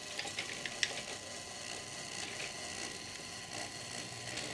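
Model steam locomotive running slowly along the track, its small electric motor and gears whirring, with several sharp clicks in the first second.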